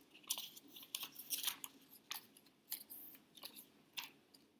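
Paper letter pieces being handled and laid out on a table: a run of short, irregular papery rustles and scrapes.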